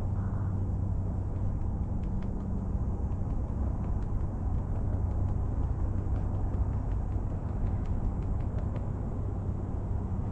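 Steady low outdoor rumble with a hum, and faint scattered ticks over it.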